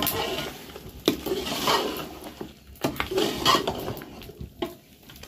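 Long metal spoon scraping and knocking against a large aluminium cooking pot while stirring yogurt into browned meat curry, a few sharp knocks among wet scraping, with the hot curry sizzling underneath.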